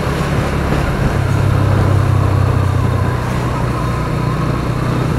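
Motorcycle engine running steadily while riding, with road and wind noise; the low engine hum grows stronger about a second in.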